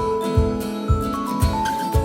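Background music: a steady low beat about twice a second under held melodic notes.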